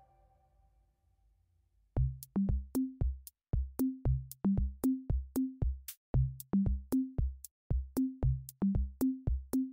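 Background music: after a near-silent start, a drum-machine beat comes in about two seconds in, with a steady kick and a bass line stepping between two notes.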